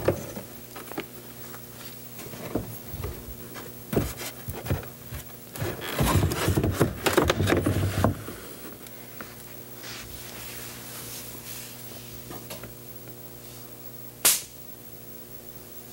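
Wooden scale-model sections being handled and set in place: scattered knocks and scrapes of wood on wood, busiest between about six and eight seconds in, then a single sharp crack near the end, over a steady low hum.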